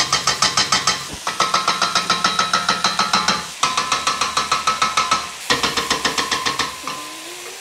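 Wooden spoon tapped rapidly on the rim of a stainless steel pot, about eight sharp metallic clicks a second with a ringing tone, in several quick runs each broken off by a short pause.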